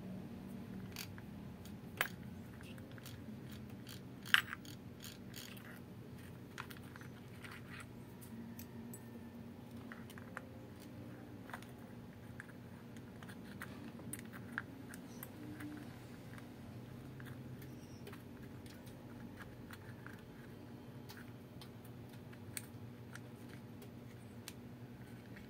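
Light clicks and small metallic taps of a screwdriver working on the metal blade-holder parts inside an opened jigsaw housing, with two sharper clicks about 2 and 4 seconds in. A faint steady low hum sits underneath.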